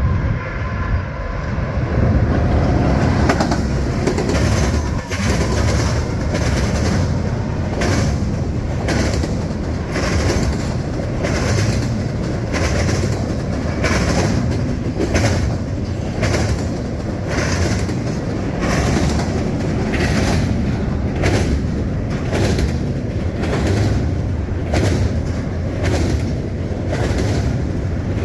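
CSX freight train rolling past, its car wheels clacking over a rail crossing diamond in a steady rhythm of about one clack a second over a continuous rumble.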